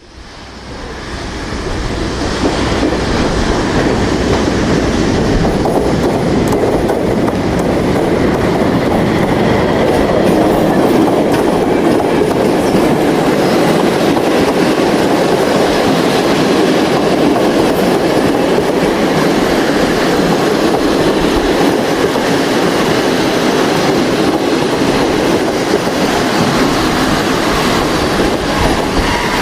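Train running on rails: a steady, loud rumble of railroad cars with clickety-clack of the wheels over rail joints, fading in over the first two seconds.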